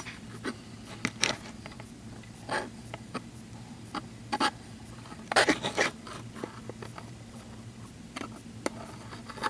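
Hairdressing shears being handled: scattered light clicks and short scrapes of metal, with a small cluster of them a little past the middle, over a steady low hum.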